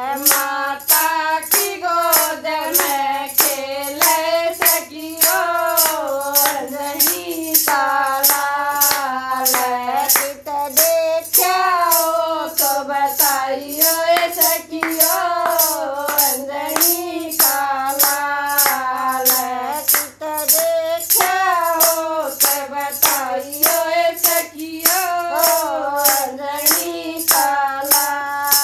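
Women singing a Haryanvi folk bhajan, accompanied by a hand-held wooden clapper with metal jingles shaken in a steady beat of about two to three strokes a second.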